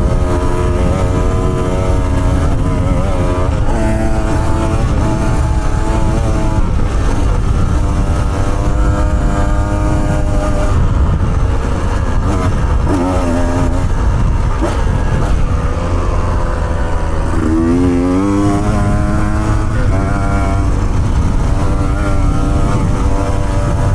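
Off-road motorcycle engine running under changing throttle on a rough dirt track, its pitch rising and falling again and again, with a strong rev-up about three-quarters of the way through, over a constant heavy low rumble.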